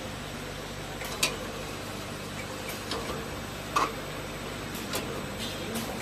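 Multi-nozzle liquid filling machine running with a steady mechanical hum, broken by a few sharp, irregular clicks and clacks from its mechanism and the bottles. The loudest click comes a little before four seconds in.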